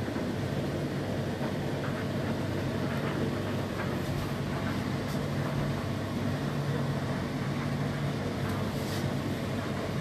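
Whirlpool WFO3P33DLXUK dishwasher running its 65 °C wash: a steady low hum from the wash pump over an even rushing noise of circulating water, with a few faint knocks.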